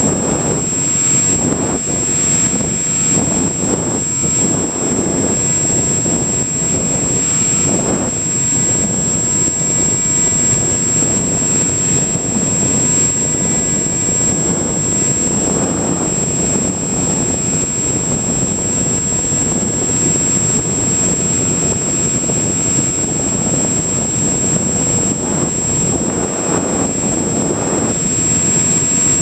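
Onboard audio from a Multiplex EasyStar electric model plane in flight: a steady rush of wind and the pusher motor, swelling a little now and then, with a constant high-pitched whine over it.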